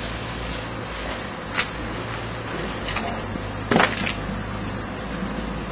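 Mixed household waste being handled and sorted by hand: rustling with a small knock about a second and a half in and a sharper clatter about two-thirds through, over a steady low engine hum and high twittering chirps.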